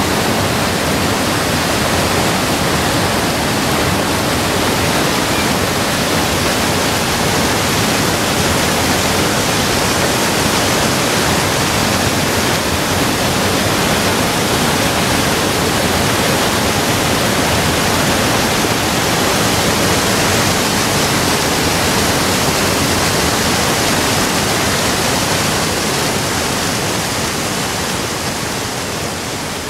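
A waterfall pouring down rock faces and over boulders: a loud, steady rush of water that eases off slightly near the end.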